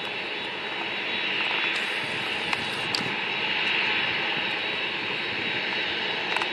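Airbus A380-800 taxiing with its four turbofan engines running: a steady jet whine over a broad rush, swelling a little midway.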